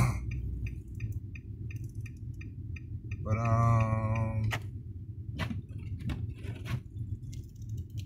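Steady low rumble of a pickup truck driving in four-wheel drive, heard inside the cab, with an even ticking of about three ticks a second, typical of a turn-signal flasher, through the first three seconds. A few sharp knocks come in the second half.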